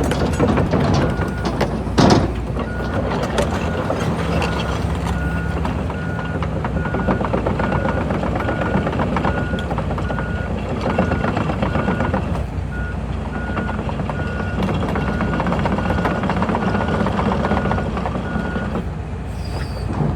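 Hitachi ZX245USLC-6N excavator running and working, its diesel engine and hydraulics steady, with its travel alarm giving a high-pitched beep about one and a half times a second from about a second in until shortly before the end, the sign that the machine is tracking. A sharp clank about two seconds in.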